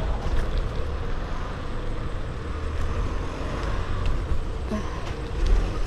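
Riding an electric kick scooter along an asphalt street: a steady low rumble of wheels on the road, with wind buffeting the microphone.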